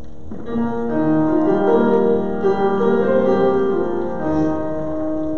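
Piano or electric keyboard playing a slow run of sustained chords, the introduction before the congregation begins to sing.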